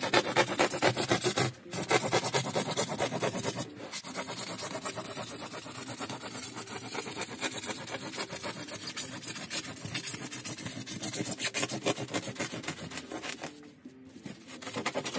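A hacksaw blade mounted in a scrap-wood holder rasping back and forth through rigid foam insulation board in quick repeated strokes, with two brief pauses early on, stopping near the end.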